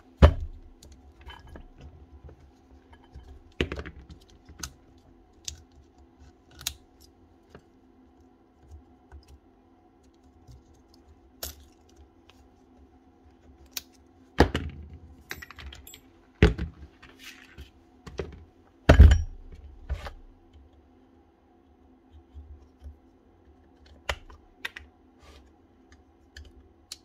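Scattered clicks and light knocks of a DeWalt SDS hammer drill's plastic housing and small parts being handled as it is taken apart, with a few louder knocks, the loudest about two-thirds of the way through. A faint steady hum runs underneath.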